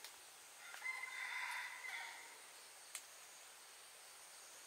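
A rooster crowing once, starting about a second in and lasting a little over a second, with a couple of faint sharp clicks.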